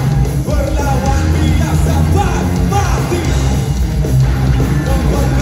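Live rock band playing loudly through a PA, with electric guitars, bass and drums and a heavy low end. It is recorded on a phone from within the crowd.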